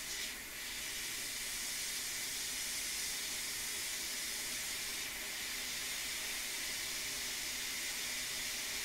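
Hot air rework station blowing a steady hiss of air while a small chip is reflowed onto a laptop logic board. The air comes on about half a second in.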